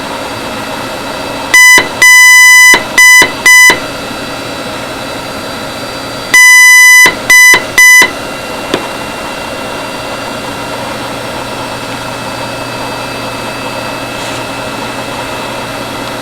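Morse code beeps on one buzzy high pitch: short, long, short, short (L), then long, short, short (D), the last letters of 'Hello World'. A faint click follows, then only a steady low hiss and hum.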